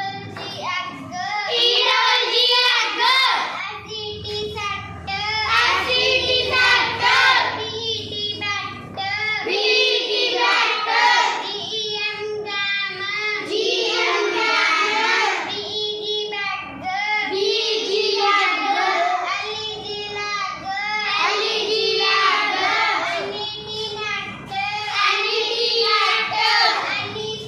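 Children's voices chanting in a sing-song way, phrase after phrase with short pauses between.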